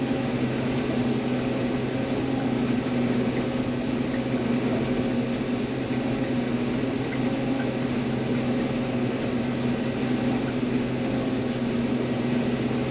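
Combine harvester running steadily while harvesting soybeans: an even engine and machinery drone with a constant hum that holds one pitch throughout.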